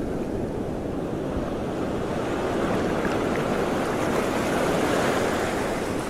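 Rushing noise of wind on the microphone and of water, swelling louder around the middle and easing off near the end, with no motor tone standing out.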